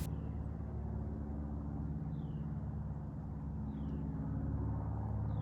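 Steady low rumble of a distant vehicle engine over an outdoor background, with three faint, short, falling bird chirps about a second and a half apart.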